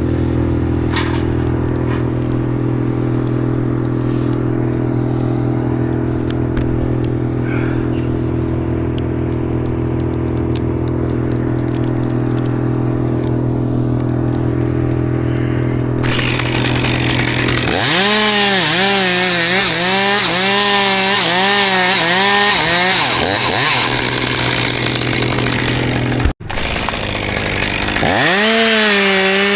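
Chainsaw idling steadily, then revved to full speed and cutting into cherry wood, its pitch dipping again and again as the chain bogs under load. After a momentary drop-out it is back at full speed cutting near the end.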